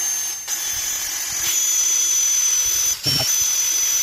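Aerosol brake cleaner spraying onto a bolt to clean it: a long, steady hiss with a thin high whistle from the nozzle, briefly broken about three seconds in, then cut off sharply at the end.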